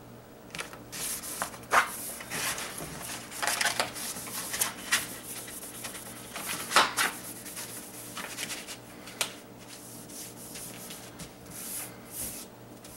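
Vinyl sticker sheet rustling and crackling as it is handled and laid onto a tacky cutting mat, with hands rubbing it flat: an irregular run of short scratchy swishes.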